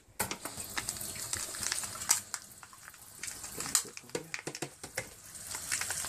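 Kitchen tap running and splashing over plant roots held under it in the sink, coming on just after the start, with scattered small clicks and knocks as the wet roots are handled.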